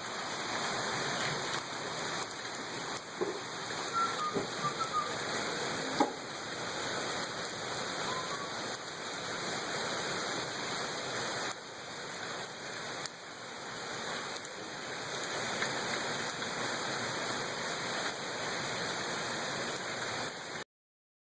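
Steady rain falling, an even hiss of drops with a few brief faint chirps and one sharp tick about six seconds in. It stops abruptly near the end.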